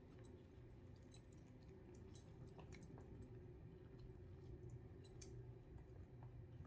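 Near silence: room tone with a low steady hum and a few faint, scattered small clicks.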